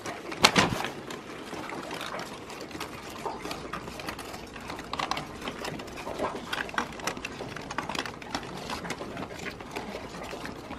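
Live crawfish crawling over one another in a paper bag: a steady, irregular crackle of shells clicking and legs scratching on the paper. A louder crinkle of the bag comes about half a second in.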